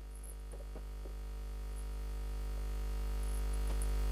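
Steady electrical mains hum and buzz from the stage sound system, growing gradually louder, with a few faint clicks.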